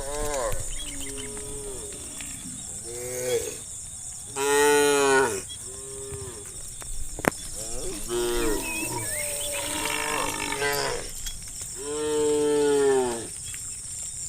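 Cows in a herd mooing, one after another, about eight moos, the two loudest near the middle and near the end. A single sharp click falls about halfway through.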